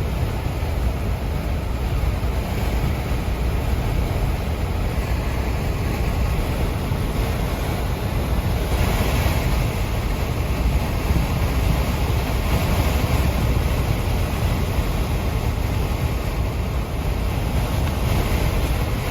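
Vehicle driving at speed: a steady, heavy low road rumble with wind hiss over it, the hiss swelling briefly about halfway through.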